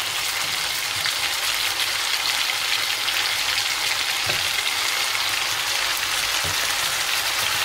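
Pork pieces and diced onions sizzling in hot oil in a pot, a steady frying hiss. There are two soft knocks, about four and six and a half seconds in.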